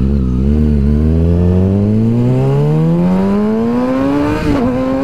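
2013 Kawasaki ZX-6R 636's inline-four engine, breathing through a full M4 exhaust, accelerating hard: the engine note climbs steadily in pitch for about four seconds, then dips briefly near the end before holding.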